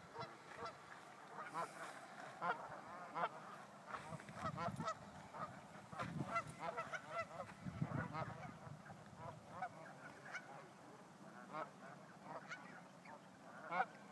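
A flock of geese honking: many short calls, overlapping and repeated throughout.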